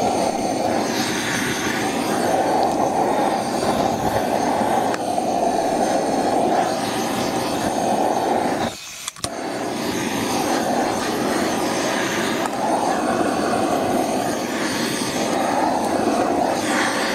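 Handheld gas torch burning with a steady rush of flame, aimed into the hollow of a log to burn out its inside. The flame stops for a moment about nine seconds in and starts again.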